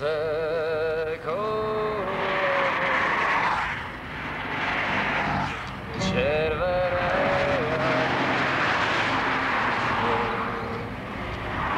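Cars driving past on a road, the tyre and engine noise swelling and fading as each one goes by. Over it, short sung phrases with a wavering vibrato come in at the start, again about six seconds in, and briefly near the end.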